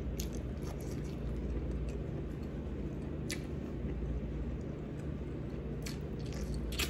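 A few short mouth clicks and lip smacks of someone eating boiled okra, over a steady low hum.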